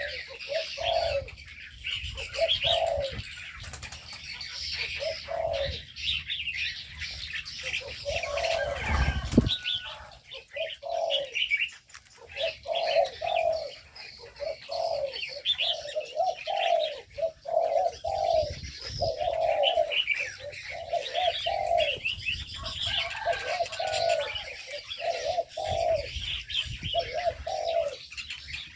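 Spotted doves cooing over and over in short repeated phrases, with many smaller birds chirping at a higher pitch throughout. A brief low thump comes about nine seconds in.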